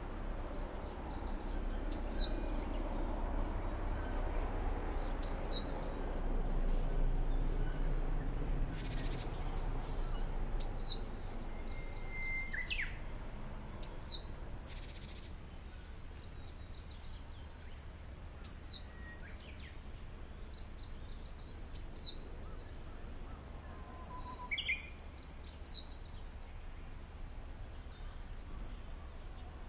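Japanese tit calling over and over, a short high two-note call, a high note then a lower falling note, repeated about every three seconds. A low wind rumble on the microphone is heavier in the first half.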